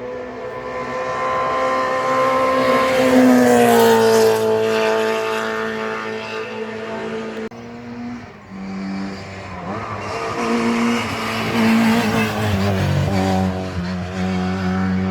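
Historic racing car engines at high revs: one car approaches and passes with its engine note dropping as it goes by, then after a sudden cut a second car accelerates through the gears, its pitch rising and falling with each shift.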